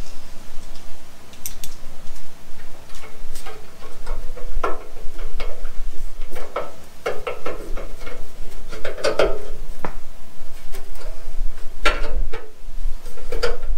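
Irregular clicks and light metallic knocks as a license plate and its hardware are handled and fitted against a chrome rear bumper.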